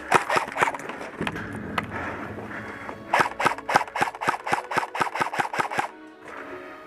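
Airsoft rifle firing: a few single shots in the first two seconds, then after a short pause a fast, even string of about eighteen shots at roughly six a second, stopping about six seconds in.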